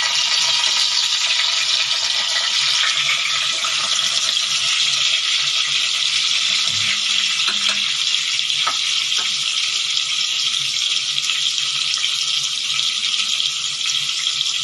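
Mashed-banana fritter batter deep-frying in hot oil in a stainless steel pot: a steady, loud sizzle.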